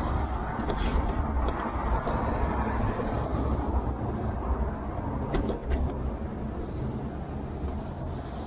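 Tern HSD bike rolling over wet paving, heard from a handlebar-mounted camera: steady tyre rumble and low wind buffeting on the microphone, with short rattles about a second in and again past the middle.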